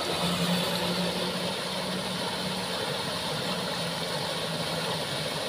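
Water pouring over a small concrete weir in a canal, a steady rushing, with a low engine hum that is strongest in the first few seconds and fades toward the end.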